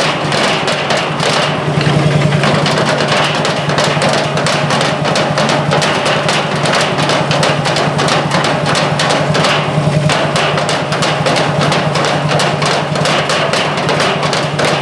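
Several drummers playing together with wooden sticks, a fast, unbroken run of strikes, over a steady low hum.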